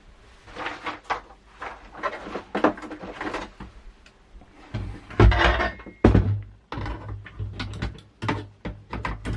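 Hand tool and metal parts clicking and knocking as the hex standoff nuts on a monitor board's VGA connector are worked loose, with a louder clatter about five seconds in.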